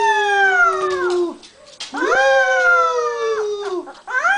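A puppy and a man howling together in long drawn-out howls, a lower steady howl under a higher one that rises and then falls away. Two howls of about a second and a half each, with a short break between them, and a third begins at the very end.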